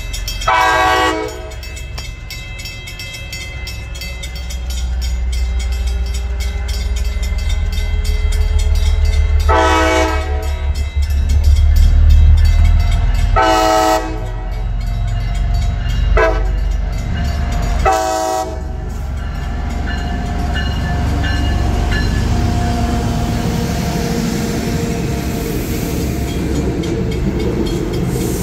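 MBTA Commuter Rail HSP46 diesel locomotive sounding its horn for the grade crossing: one long blast about a second in, then the long, long, short, long crossing signal, over a diesel engine rumble that grows louder as it nears. The passenger coaches then roll through the crossing with a steady rumble and clatter of wheels on the rails.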